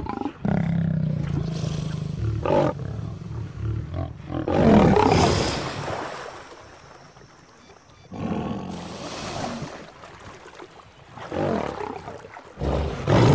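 Male lion growling and snarling in a threat display: a low, steady growl at the start, then several separate loud snarling bursts. Water splashes near the end.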